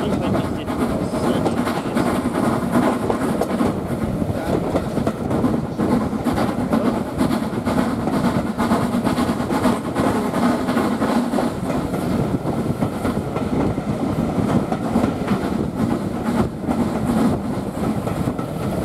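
Steam-hauled passenger train running steadily along the line, heard from a carriage window: a continuous rumble of the coaches' wheels on the rails.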